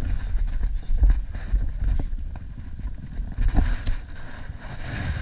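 Wind rumbling on the microphone, with a few scattered knocks and clicks from the rod, reel and kayak while a hooked fish is reeled in.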